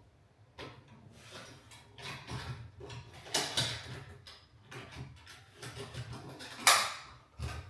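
Handling noise from wiring a recessed can light: irregular rustling and small clicks, with one sharp, louder snap near the end.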